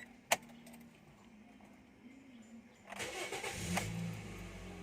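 Toyota Vios engine being started: a sharp click, then about three seconds in the starter cranks briefly and the engine catches almost at once and keeps running. The quick start shows the hard starting is cured now that the clogged fuel filter has been replaced.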